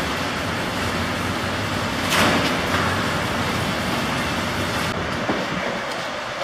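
Carcass cart loaded with metal feeder pans rolling over a slatted barn floor, against a steady rushing background noise, with a brief louder rush about two seconds in.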